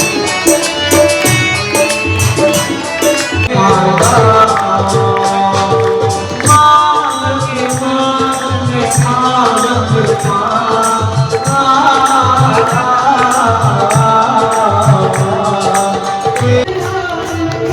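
Music: a voice singing over a fast, steady drum beat, with the singing coming in about three and a half seconds in.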